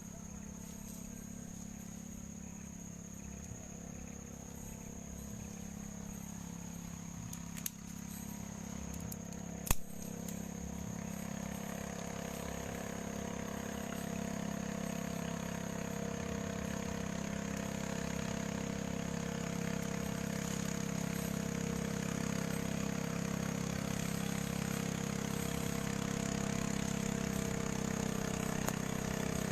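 A small engine running steadily at low revs, slowly getting louder from about a third of the way in. Two sharp knocks come just before it swells; the second is the loudest sound.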